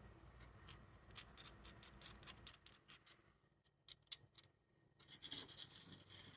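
Near silence: room tone with faint scattered small clicks and a brief soft rustle about five seconds in.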